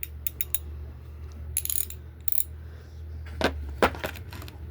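Pittsburgh 3/8-inch-drive ratchet clicking as it is worked by hand: a quick run of clicks at the start and another burst in the middle, then two louder metallic knocks near the end.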